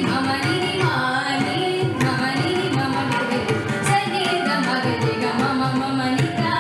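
A woman singing a Carnatic keerthanam into a microphone, her voice gliding and bending between notes, over a steady drum accompaniment.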